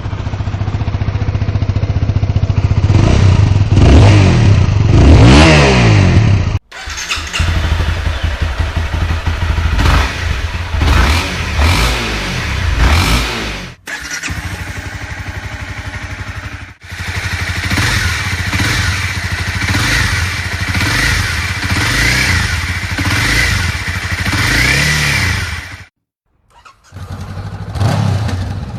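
Honda CBR sport motorcycle exhausts idling and being revved, in a string of separate clips of different bikes joined by abrupt cuts. Each engine's pitch rises and falls with repeated throttle blips, and there is a short silent gap near the end before the next bike starts.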